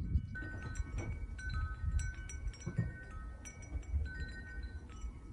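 Wind chimes tinkling irregularly, many small struck tones overlapping, with wind rumbling on the microphone underneath.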